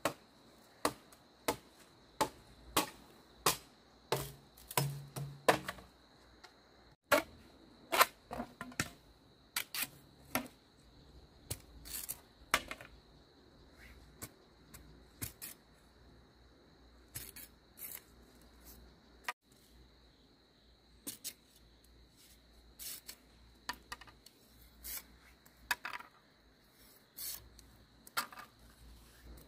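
A series of sharp clicks and knocks, evenly paced at about one or two a second at first, then more irregular and spaced out.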